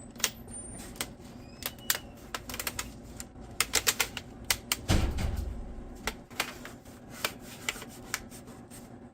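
Plastic screen bezel of an Acer Aspire E5-532 laptop being pressed onto the display housing: a string of irregular sharp clicks as its snap clips catch, bunched about four seconds in, with a dull thump about five seconds in.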